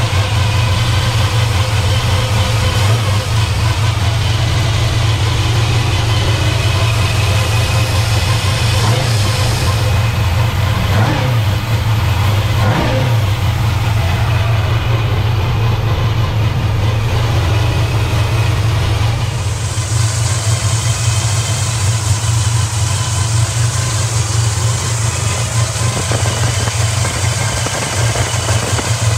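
383 cubic-inch stroker small-block Chevy V8 idling steadily on a Mighty Demon 750 double-pumper four-barrel carburetor, with two brief rises and falls in engine speed around the middle.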